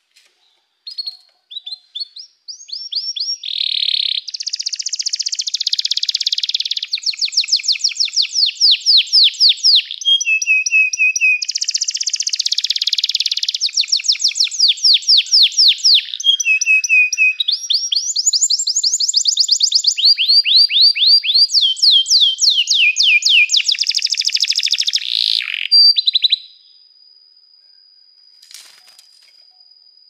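Domestic canary singing one long, continuous song: fast trills and rolls of rapidly repeated notes, some rising and some falling, alternating with buzzy rattling passages. It stops abruptly near the end, leaving only a faint steady high tone.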